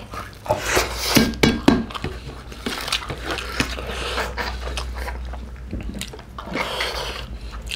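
Close-miked eating: two people chewing and sucking mutton curry off the bone with their fingers, with irregular wet smacks, slurps and sharp little clicks.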